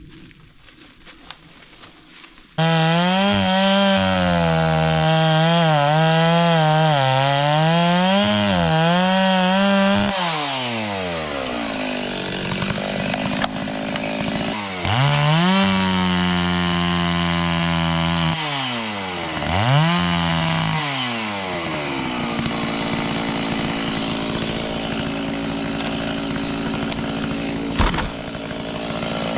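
Stihl chainsaw cutting wood at full throttle, its pitch wavering under load. It comes in suddenly about two and a half seconds in, then drops back and revs up again several times between cuts before running steadier. A sharp click comes near the end.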